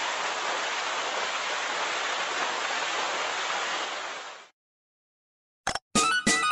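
Steady, even static-like hiss that fades out about four and a half seconds in. After a second of silence, music starts near the end.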